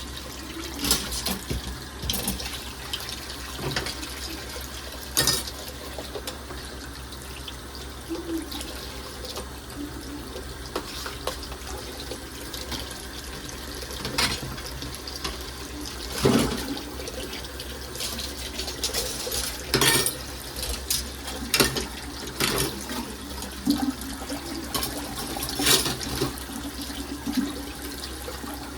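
Water running from a tap into a sink, with dishes clinking and knocking against each other now and then.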